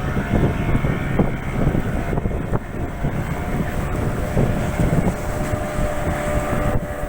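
Motor boat engine running steadily at cruising speed, its steady hum partly buried under wind buffeting the microphone.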